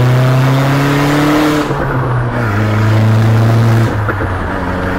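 Car engine accelerating, heard from inside the cabin: its note climbs steadily, drops sharply at a gear change about two seconds in, holds steady, then drops again about four seconds in.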